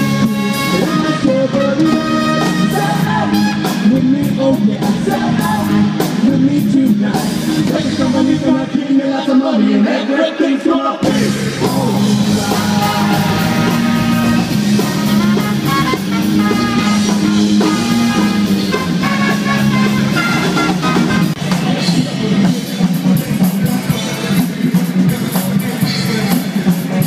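Live band music with singing: a horn band with trumpet and trombone playing, then an abrupt cut about eleven seconds in to a rock band with vocals, bass guitar and drums.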